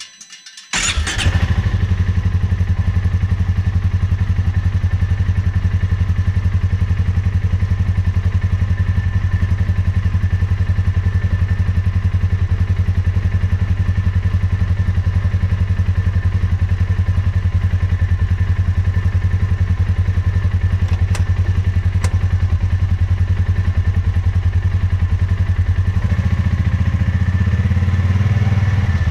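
Polaris Ranger 570's single-cylinder engine comes in suddenly about a second in, then idles with a steady, even pulse. It is being run briefly on fresh oil and a new filter to fill the filter before a leak check.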